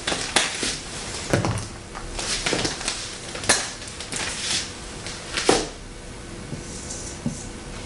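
A handful of short, irregular scrapes and knocks from a marker working against a whiteboard, with light handling noise in between.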